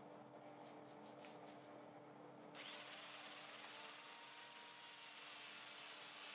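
A small high-speed electric motor switches on about two and a half seconds in and spins up to a steady high whine with a rush of air.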